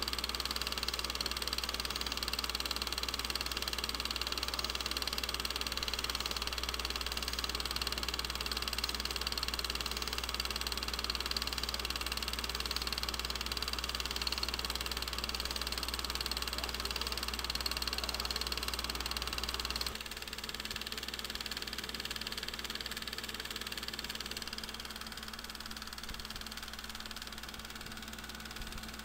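Film projector running steadily: a constant mechanical hiss over a low hum. About twenty seconds in the low hum drops away abruptly and the sound gets slightly quieter.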